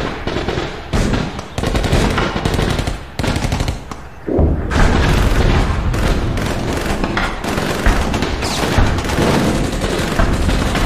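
Battle gunfire: dense bursts of rapid machine-gun and rifle fire, easing off briefly about three to four seconds in before picking up again.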